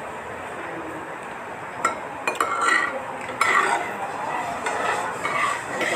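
Forks and spoons clinking and scraping against plates, starting about two seconds in, over a steady background hiss.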